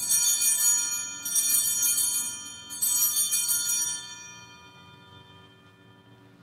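Altar bells (a set of small hand bells) shaken three times, about a second and a half apart, ringing brightly and fading away over the following seconds. They mark the elevation of the consecrated host at Mass.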